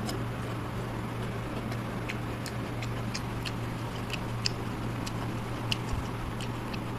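Fingers mixing rice and curry on a steel plate: small irregular clicks and squishes of fingertips and rice against the metal, over a steady low hum.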